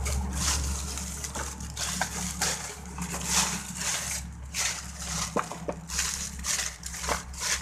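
Plastic mailer bag and black plastic wrapping crinkling and rustling in repeated bursts as they are pulled open and off a cardboard box.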